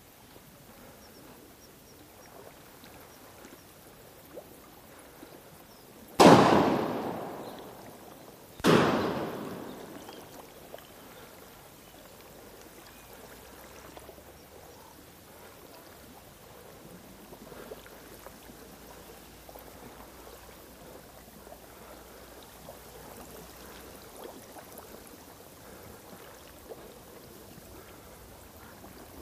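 Two shotgun shots, about two and a half seconds apart, each echoing and dying away over a second or two.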